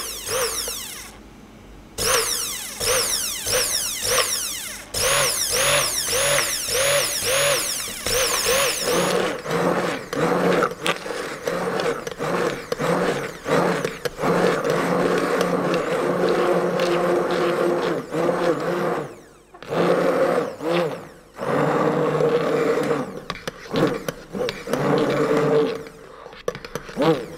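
Bosch 400 W stick blender pulsed on and off in short bursts, about one and a half a second at first, the motor pitch swinging up and down with each burst, then run in longer stretches with brief pauses. It is blending liquid-soap batter that has thickened into a stiff paste.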